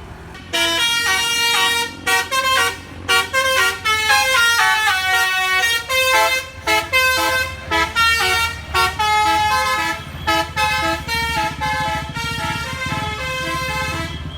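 A bus's 'basuri' telolet horn, a multi-note musical air horn, playing a quick tune of stepped notes that starts about half a second in, over the low rumble of the bus's engine.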